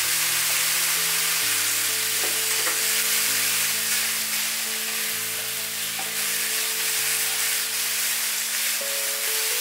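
Soybean sprouts and fried tofu sizzling in a hot wok as a spatula turns them over. The sprouts are being dry-fried without water and are just starting to soften.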